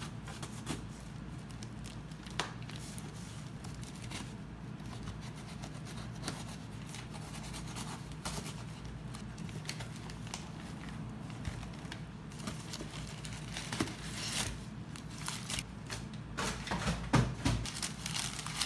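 A cardboard parcel being opened: a small blade scraping and cutting through packing tape with scattered clicks and tears, then crumpled brown packing paper rustling and crinkling, louder and busier near the end.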